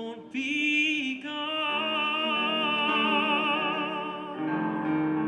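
Music: operatic-style singing, long held notes with strong vibrato over sustained accompaniment, moving to a new note about four and a half seconds in.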